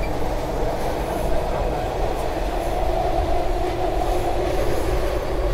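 SEPTA Market-Frankford Line el train running, heard from inside the car: a steady rumble of wheels on rail with a constant hum.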